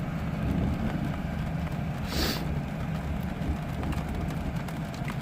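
Low rumble of rolling thunder heard from inside a van, with a brief hiss about two seconds in.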